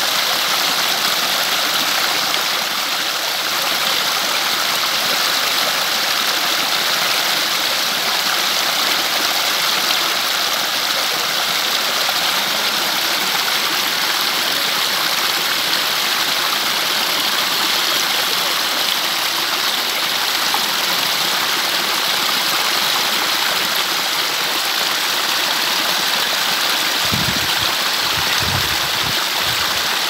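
Shallow stream of clear water flowing and splashing over stacked river stones in small cascades, a steady gurgling rush. A few brief low bumps near the end.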